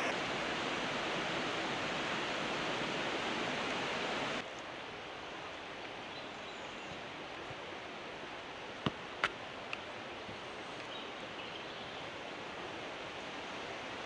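Steady rush of falling water, an even hiss with no pitch to it. It drops suddenly to a softer level about four seconds in. A few sharp clicks come around nine seconds in.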